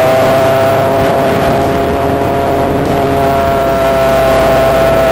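Electric motor and five-blade propeller of an E-flite Spitfire Mk XIV RC model running steadily in flight as a high whine, with air rushing past the onboard camera.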